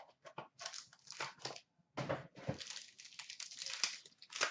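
Clear plastic wrapper on a sealed pack of hockey cards crinkling and tearing as it is pulled off by hand, in a run of irregular rustles and crackles.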